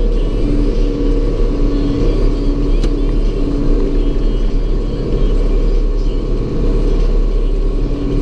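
An engine running steadily with a low rumble and a steady hum.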